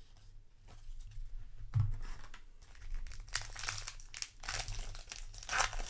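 A thump just under two seconds in, then the foil wrapper of a trading-card booster pack crinkling and tearing as it is opened by hand, in several bursts over the last three seconds.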